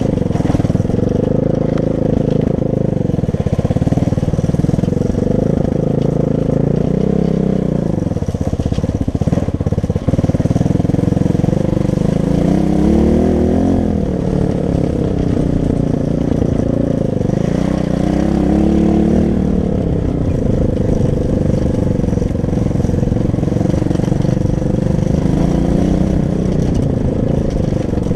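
Loncin 250 cc pit bike's single-cylinder four-stroke engine running while riding, its pitch climbing and dropping again and again as the throttle is opened and closed through the gears.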